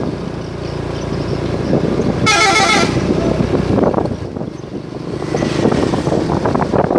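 Indonesian 'telolet' multi-tone musical bus horn sounding a short, rapidly warbling burst about two seconds in, over the noise of passing vehicles.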